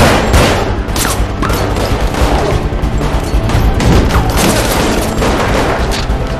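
Film chase soundtrack: a string of gunshots and impacts at irregular intervals over a loud film score with steady low tones.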